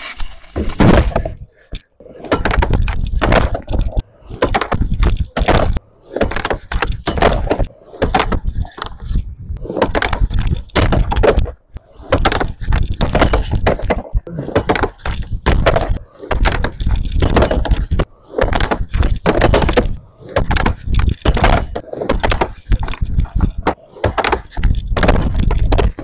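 Skateboard on a plywood mini ramp: wheels rolling and the board clacking and slapping down on the wood again and again as kickflip attempts fail, in short takes that break off every second or two.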